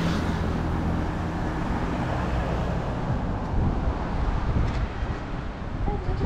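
Road traffic on a city street: cars passing with a steady low rumble.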